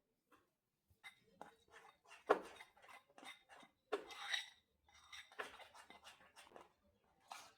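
Dishes and utensils clinking and knocking in a kitchen: a string of irregular taps and clatters, the loudest a little over two seconds in and again about four seconds in.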